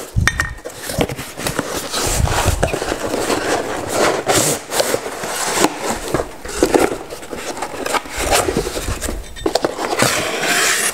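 Cardboard box being opened and unpacked: flaps and cardboard inserts scraping, rustling and crackling as they are pulled apart and out, with a few dull bumps in the first few seconds.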